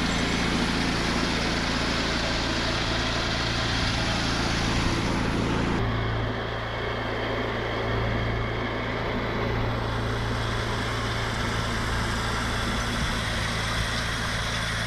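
Small Honda gasoline engine on a horse-drawn forecart running steadily, driving a hay tedder. The sound turns duller abruptly about six seconds in.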